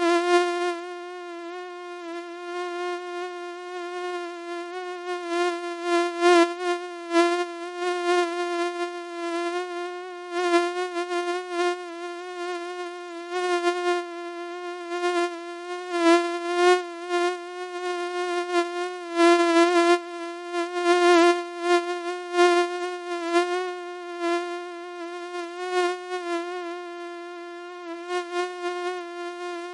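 Mosquito in flight: the steady high-pitched whine of its wingbeat, wavering slightly in pitch and repeatedly swelling louder and fading as it moves close to and away from the microphone.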